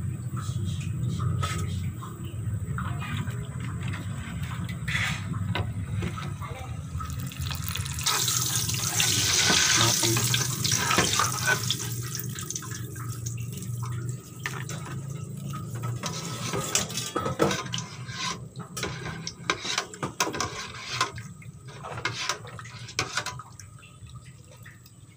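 Kue bawang dough pieces sizzling and crackling in hot oil in an aluminium pot. The hiss swells for a few seconds near the middle as the pieces are lifted out with a perforated metal skimmer. Scattered sharp clicks of metal skimmers against the pot follow in the second half.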